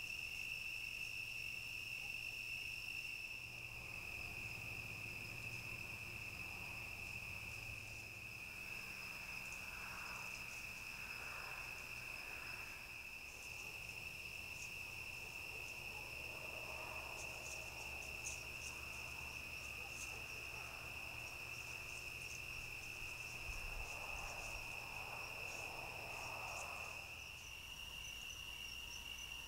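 Night chorus of crickets trilling steadily on one high continuous tone, with soft rustling now and then.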